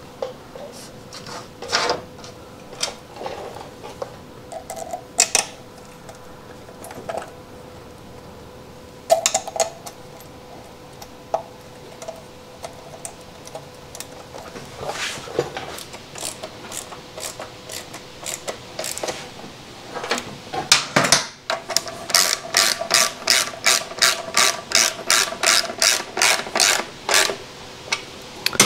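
Hand-tool work on a motorcycle: scattered clicks and knocks, then about two-thirds of the way in a fast, even run of ratchet clicks, three or four a second, over a faint steady hum.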